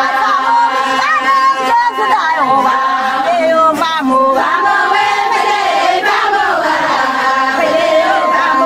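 Somali Bantu song: voices singing over music with steady held tones underneath.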